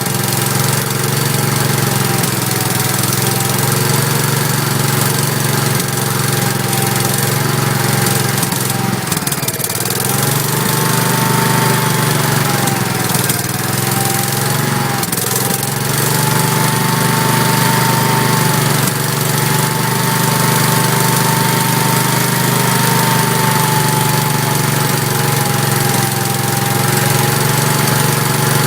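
Kohler K341 16 hp single-cylinder engine of a Gravely 5865 walk-behind tractor running on its first start after repair, with the engine speed sagging briefly twice, about ten and fourteen seconds in, then picking back up.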